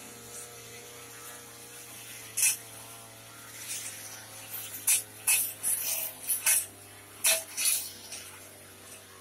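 Backpack two-stroke brush cutter running steadily at cutting speed, with sharp, brief swishes as its spinning cutting head strikes the grass: one about two seconds in, then a quick run of them in the second half.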